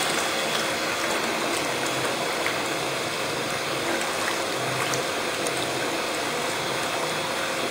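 Quadro Ytron Jet Mixer running submerged in a stainless steel tank, churning a mix of water and granulated sugar as it dissolves: a steady rush of agitated liquid over the mixer's motor, with a faint steady tone.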